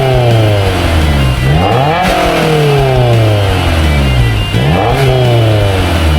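Honda S2000's four-cylinder engine through a Revel Touring-S stainless straight-through exhaust, revved repeatedly: the pitch climbs quickly to a peak about two seconds in and again near five seconds, each time sliding slowly back down. A deep exhaust note.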